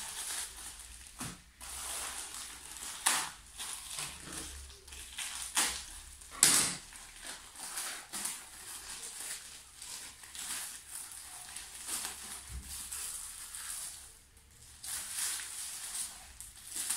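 Plastic mailer bags and small plastic packets crinkling and rustling as they are handled and torn open by hand, with irregular louder crackles, the loudest about three and six and a half seconds in.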